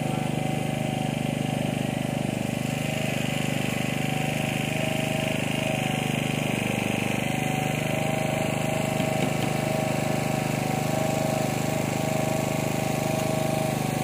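A steady engine-like hum that runs without change: a low drone with a constant higher tone over it and a faint hiss.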